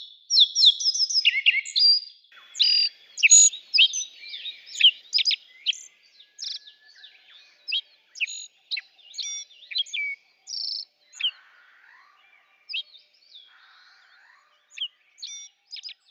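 A forest songbird singing a long run of quick, high-pitched whistled notes and short trills. The notes come thick and fast in the first few seconds, then in more spaced-out phrases.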